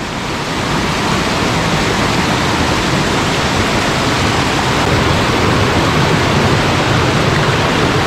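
Spring water gushing out of a rock cliff at the head of a river: a steady, loud rushing that grows slightly louder in the first second.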